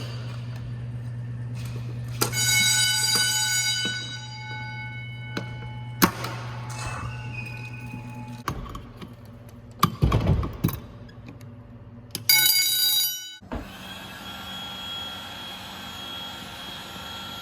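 Fire alarm bells sounding in short bursts during a fire alarm system test, about two seconds in and again after about twelve seconds, each leaving a ringing that fades slowly. A steady low hum runs under the first part, and a low rumble with knocks comes about ten seconds in.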